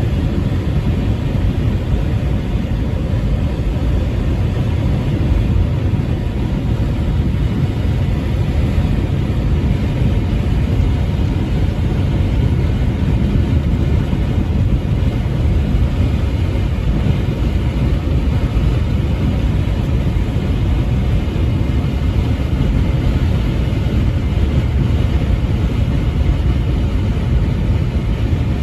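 Semi truck driving on the highway: a steady, unbroken engine and road rumble.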